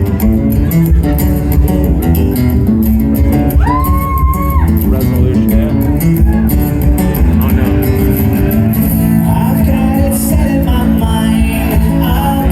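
Live guitar-led rock music in an instrumental break between sung lines, with guitar and bass. About four seconds in, one held note slides up, holds briefly and slides back down.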